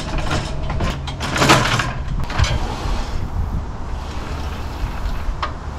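A miter saw on its carriage sliding along the metal rails of a gutter-machine-mounted miter saw stand, a rough rolling scrape with the loudest pass about one and a half seconds in. The slide runs much better since washers were added to space its mounting hardware.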